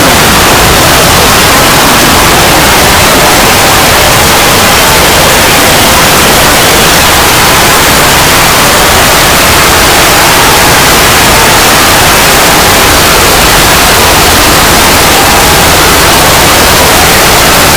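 Loud, heavily distorted static-like noise, steady and filling everything from deep lows to the highest hiss, with faint pitch glides buried under it.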